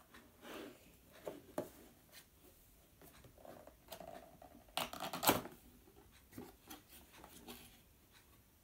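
Small cardboard gift box being picked open by hand: scattered light taps and scratches of fingers on card, with a louder rustling burst about five seconds in.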